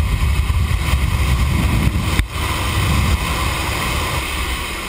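Wind rushing past the open door of a small jump plane in flight, buffeting the microphone with a heavy low rumble over the aircraft's engine noise. A brief sharp break a little over two seconds in.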